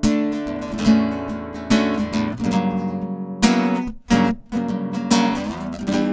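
Ibanez classical guitar played solo, with chords strummed and picked and left ringing, struck about once a second. There is a short break in the sound about four seconds in, and then the strumming resumes.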